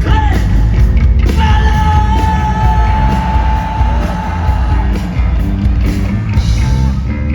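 Punk rock band playing live at full volume, with drums, bass and guitars under a yelled vocal. About a second in, a high note is held for roughly three and a half seconds.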